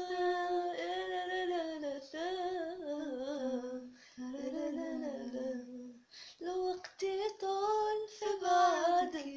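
A woman singing alone, wordless vocalising on long held notes that waver and slide down step by step, with short breaths between phrases.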